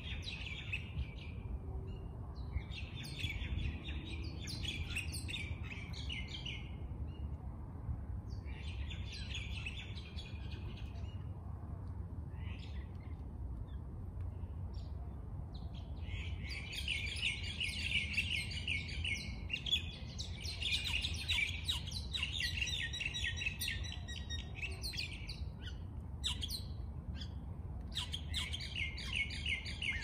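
Birds chirping and chattering in rapid runs, coming in repeated bursts of a few seconds each with a longer spell of chatter past the middle, over a steady low background rumble.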